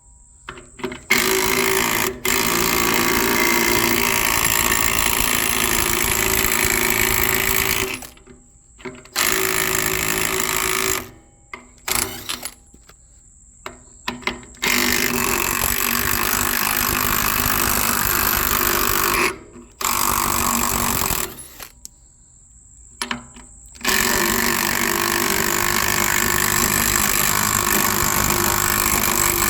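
12-volt cordless impact wrench hammering on trailer lug nuts, run in several long trigger pulls of a few seconds each with short pauses between.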